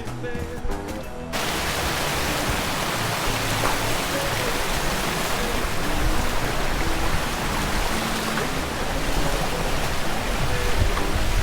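Background music with a steady rushing hiss, like running water or rain, that cuts in abruptly about a second and a half in and stays loud.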